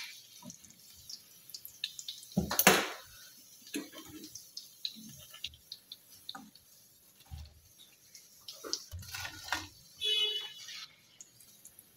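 Chicken nuggets sizzling in hot oil, with scattered spits and crackles, as a silicone spatula scoops them out against a non-stick frying pan. There is a louder clatter about two and a half seconds in and a short squeak near the end.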